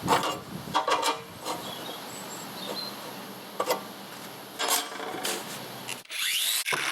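Metal parts and tools being handled on a workbench: a series of separate clinks and knocks. From about six seconds in there is a steady hiss.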